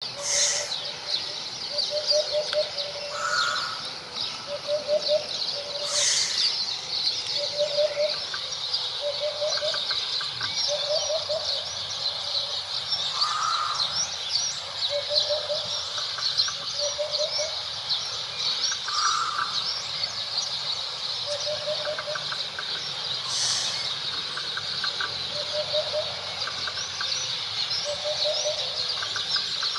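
Eurasian hoopoe singing its low, soft 'oop-oop-oop' song: short groups of hollow notes repeated every second or two. Underneath runs a continuous dense high-pitched twittering, with a few shorter mid-pitched calls.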